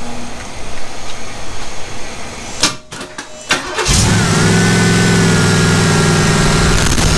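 Chevrolet 350 small-block V8 with a solid-lifter cam on open headers being cranked on the starter. A few sharp pops come about three seconds in, then it catches at about four seconds and runs steadily at a raised idle. A high whine runs over the engine for a few seconds and stops shortly before the end.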